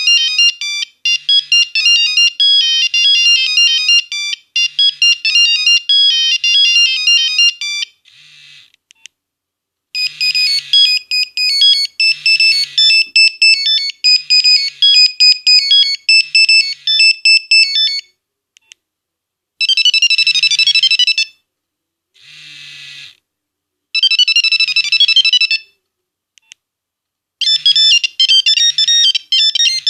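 Nokia 1101 mobile phone playing its built-in monophonic ringtones in turn: fast, high, beeping melodies, one note at a time. A new tune starts after each short gap, and the later ones are shorter.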